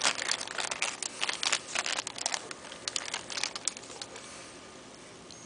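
Clear plastic wrapping crinkling as a phone is handled and pulled out of it, with dense irregular crackles that die away about four seconds in.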